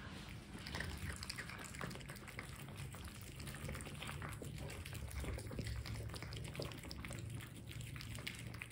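Several cats eating flaked cooked fish from bowls: faint, quick wet chewing, smacking and licking clicks overlapping, over a low steady hum.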